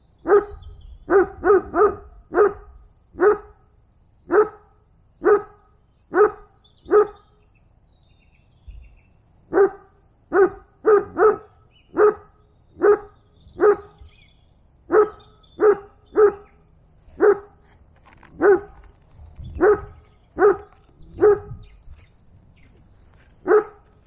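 A dog barking over and over: single barks roughly a second apart, with short runs of two or three quick barks, and one pause of a couple of seconds about a third of the way in.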